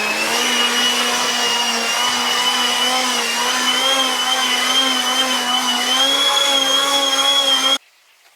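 Small electric motor running at a loud, steady whine whose pitch creeps slowly upward, then cuts off abruptly near the end.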